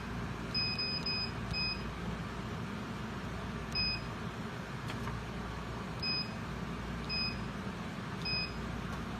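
Short electronic key-press beeps from a heat pump dryer's controller, about eight of them at irregular intervals, a quick run of four in the first two seconds, over a steady low hum.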